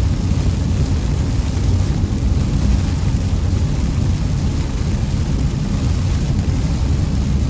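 A car in motion: steady road and engine noise, a low even rumble with no breaks.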